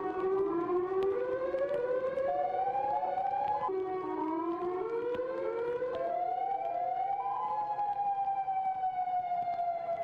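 Several outdoor tornado warning sirens sounding at once, their tones rising and falling out of step with each other. Near the end one winds down in a long, slow falling tone.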